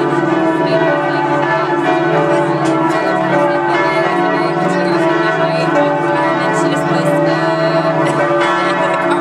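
Several church bells ringing together without a break, their tones overlapping into a continuous wash.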